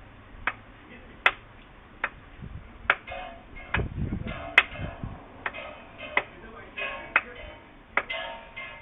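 Audi BBJ 3.0 V6 petrol engine knocking: sharp, loud knocks a little under a second apart, with a metallic rattle between them. The knocking is the sign of piston knock in a cylinder.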